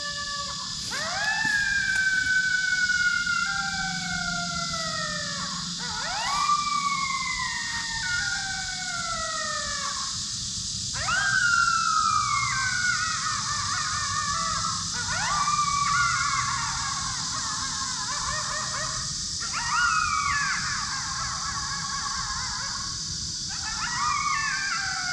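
Coyote howls played from an electronic predator call: a series of wails, each rising sharply and then sliding down for a few seconds, repeating about every four to five seconds, with several voices overlapping into wavering howls and yips in the second half.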